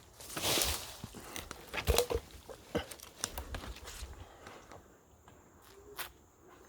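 Rustling and crunching of someone moving through dry vegetation, with a burst of noise in the first second and a few sharp clicks about two and three seconds in, then quieter.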